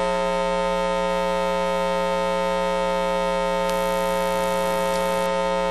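Steady electrical buzz with many overtones, mains hum picked up in the sound or recording system. A soft high hiss is added for about a second and a half, near the end.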